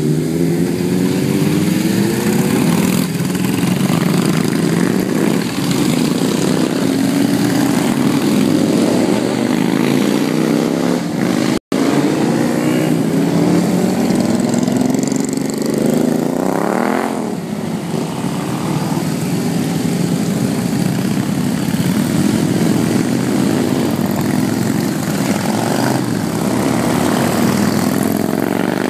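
A procession of motorcycles, sport bikes and cruisers, riding past one after another, their engines overlapping and revving up and down as they pull away. About halfway through, one bike revs sharply up and back down. Just before that the sound drops out for an instant.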